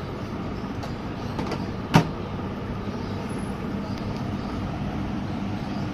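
Repaired microwave oven running, with a steady electrical hum and no crackle of arcing: the sparking fault in the chamber is cured. A single sharp knock about two seconds in.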